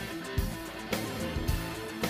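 Instrumental music with guitar over a steady beat of about two strikes a second.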